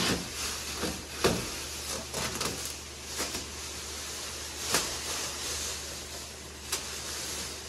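Plastic masking sheeting and tape crinkling and rustling in irregular crackles as they are pulled off a freshly painted truck front end, over a steady low hum.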